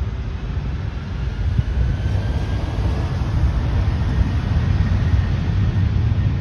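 Boeing 737-700's CFM56 jet engines spooling up for takeoff: a steady heavy rumble with a faint rising whine, slowly growing louder.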